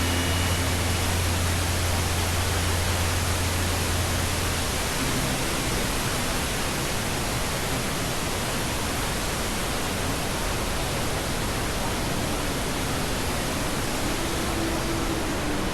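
Steady, loud roar of the Iguaçu Falls: massive waterfalls pouring down in a constant rush of water. A low steady hum sits under it for about the first five seconds.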